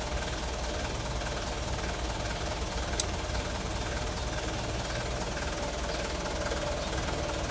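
Steady low hum of an idling vehicle engine, with one small sharp click about three seconds in.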